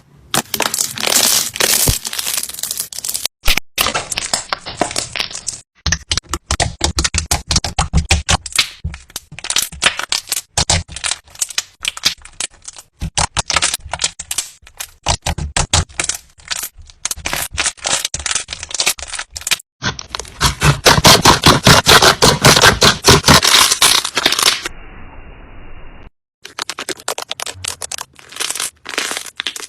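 Slime being handled, giving dense runs of crackling, popping clicks that stop and start abruptly at several cuts, loudest a little past the middle.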